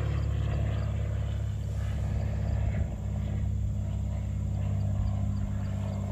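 Steady low drone of a running machine.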